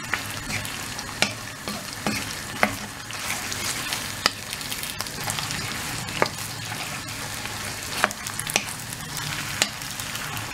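Beef and sliced onion sizzling in a hot wok as they are stirred with a spatula, which knocks against the pan every second or two.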